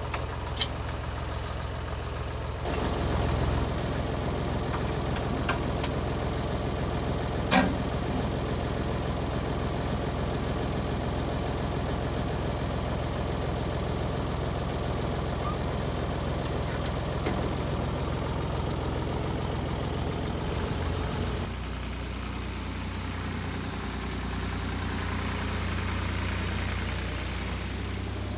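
Ford 4000 tractor engine idling steadily, running a little louder from about three seconds in until about twenty-one seconds in. A single sharp metallic clank about seven and a half seconds in.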